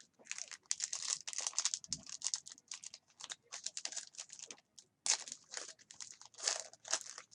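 Trading-card pack wrapper and cards rustling and crinkling as they are handled, in quick irregular bursts.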